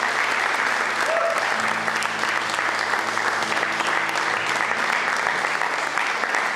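A congregation applauding steadily, many hands clapping at once.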